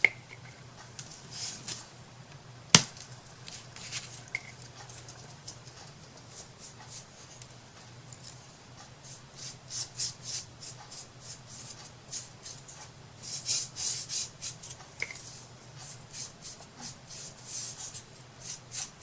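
Hands rubbing or scrubbing at a craft piece in quick, hissy strokes, about four a second, coming in several bursts. There is one sharp click about three seconds in.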